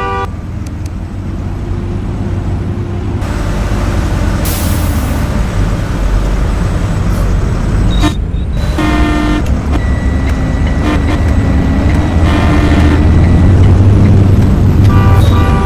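School bus with its engine running and growing louder, a burst of air-brake hiss about four seconds in, and short horn blasts about nine and twelve seconds in and again near the end.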